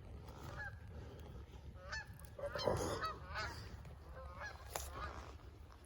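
Geese honking repeatedly in the distance, many short calls overlapping, with a brief noisy scrape about halfway through.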